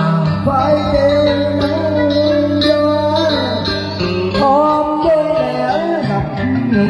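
Music from a slow song: a wavering melody line over a steady bass and guitar.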